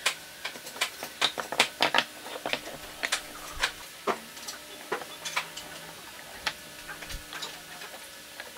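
Wooden parts of a folding dowel-jointed box knocking and clicking against each other and the bench as they are folded together and handled. The clicks are short, sharp and irregular, busiest in the first two seconds or so and sparser after.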